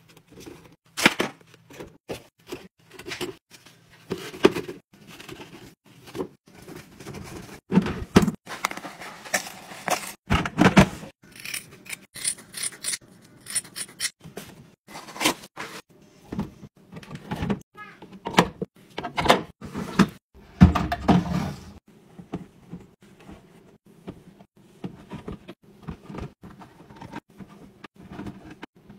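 Close-up handling sounds of household organizing: short knocks and clicks of clear plastic bins and drawers, rustling of sponges and packaging, and scissors snipping through a scrub pad. Softer fabric handling of folded towels comes near the end.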